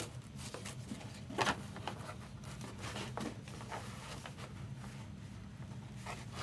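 Soft handling noises: scattered light rustles and clicks, the loudest about one and a half seconds in, over a steady low hum.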